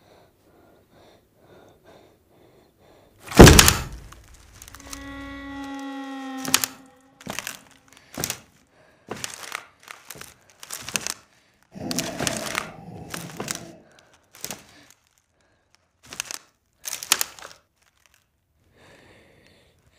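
A sudden loud bang, then a creaking tone held for about a second and a half, then a run of heavy thuds and knocks roughly a second apart, with a longer scraping stretch in the middle.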